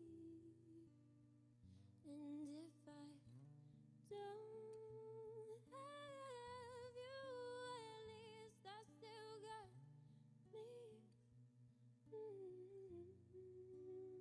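A woman sings a wordless, humming vocal line live into a microphone. She holds and glides between notes, with a long wavering high passage near the middle, over low sustained accompaniment chords that change every second or two.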